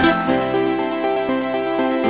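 Background music: held, sustained notes with no beat, changing chord a couple of times.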